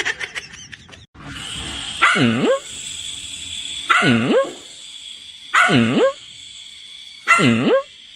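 A dog giving four drawn-out barking calls, about one every second and three quarters. Each call dips in pitch and rises again.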